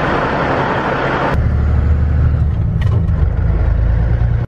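Semi truck's Caterpillar diesel engine running. About a second and a half in, the sound cuts abruptly to a steady, deep rumble heard from inside the cab as the truck drives. The owner says the engine needs a bottom end: rings and bearings.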